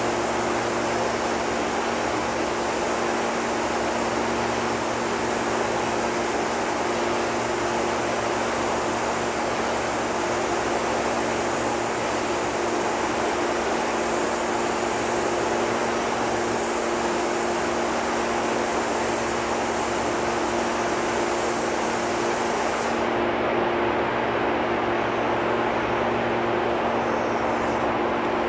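Paint booth ventilation running with a steady hum and rush of air, overlaid by the hiss of a paint spray gun. The spray gun's hiss cuts off sharply near the end.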